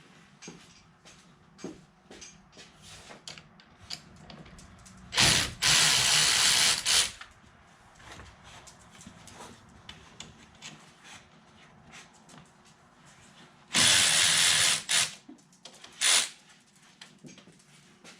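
A power tool runs in two loud bursts, the first about 2 seconds long and the second about a second and a half, then briefly once more. It is undoing the fasteners that hold the truck's battery in place. Small metallic clicks and knocks of tools and parts being handled fill the gaps.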